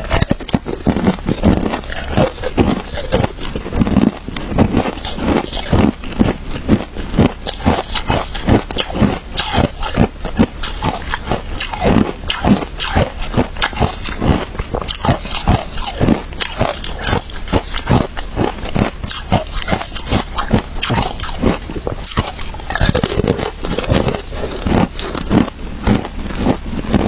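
Close-miked chewing of crunchy frozen shaved ice, a dense run of sharp crunches and crackles, several a second without pause.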